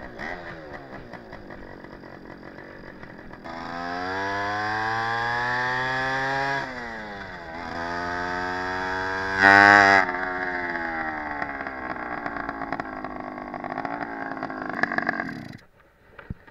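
Stadion S11 moped's 50cc two-stroke engine running on the move, its pitch rising and falling with the throttle, with a brief very loud burst about halfway through. The engine cuts out suddenly near the end. It is running with its exhaust coming loose, and the exhaust falls off on this ride.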